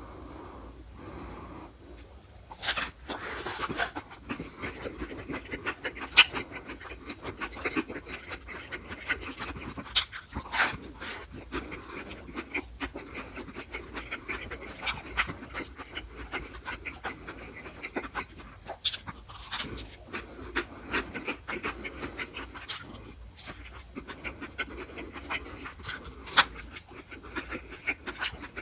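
Close-miked eating: wet chewing and lip smacks with heavy breathing through the nose, as a man bites into and chews a soft, cream-topped treat. Quieter for the first couple of seconds, then many sharp smacking clicks.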